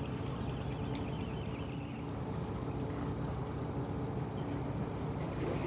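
Fishing boat's engine humming steadily at idle, with wind and water noise under it and a few faint ticks.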